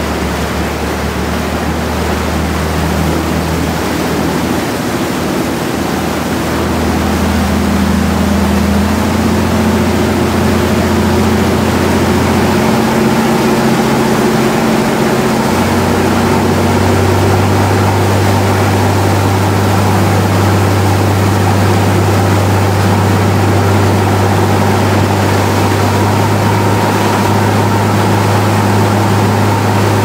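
Boat's engine running under way, its low note shifting several times and growing louder in the first half, over a steady rush of water against the hull and wake.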